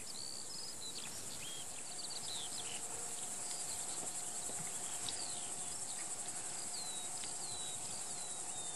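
Steady high-pitched chirring of meadow insects, with scattered short high chirps over it.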